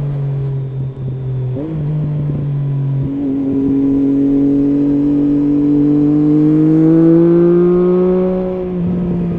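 Triumph Street Triple S three-cylinder engine running through an SC Project SC1-R slip-on exhaust with its dB killer fitted, heard from the rider. The engine note steps in pitch twice in the first few seconds, then climbs steadily under acceleration and drops back near the end.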